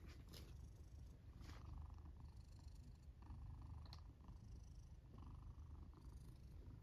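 Sleeping domestic cat purring: a faint, steady low rumble.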